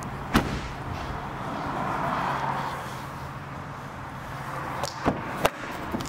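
A car's hatchback tailgate shut with a single slam about half a second in, then three sharp clicks and knocks near the end as a rear door latch is opened.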